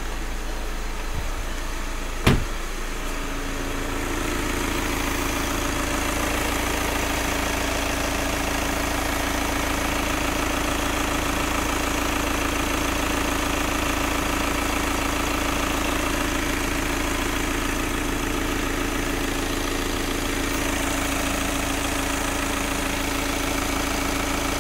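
2013 Volkswagen Passat's TDI diesel engine idling steadily at the open engine bay, with a constant hum running through it. A single loud thump about two seconds in.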